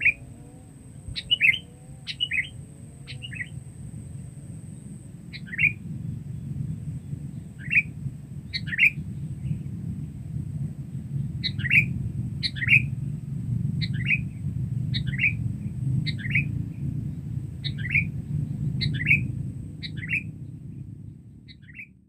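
Sooty-headed bulbul (kutilang) calling loudly: short, sharp call notes repeated at irregular intervals, often in quick pairs, with a brief lull midway. A steady low rumble runs underneath.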